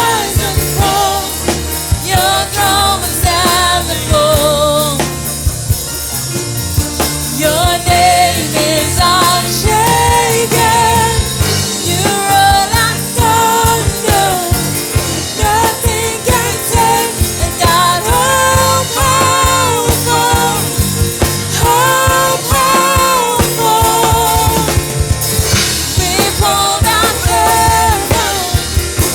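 Worship song: voices singing a sustained, wavering melody over a band with bass and a steady drum beat.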